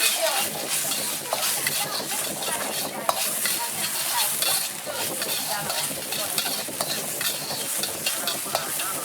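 Food sizzling in a wok as it is stir-fried, a metal utensil scraping and clinking against the pan in quick, uneven strokes.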